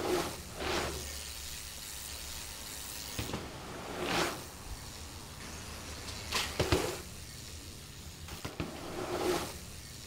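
Mountain bike on a dirt trail: five short rushes of tyre noise, each swelling and fading within about half a second, with sharp clicks and rattles from the bike in the middle and towards the end.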